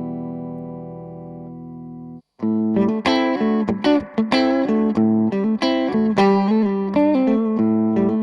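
Electric guitar played through a Cort MX15 practice combo amplifier. A held chord rings out and fades, cuts off about two seconds in, and is followed by a fast picked riff of short notes.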